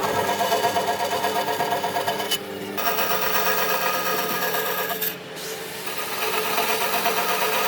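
Electric power tool running and working wood: a steady motor hum with a rapidly pulsing grinding, rubbing noise, which eases off briefly twice.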